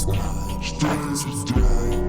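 Background music with a steady beat: deep bass hits about every second and a half under held tones.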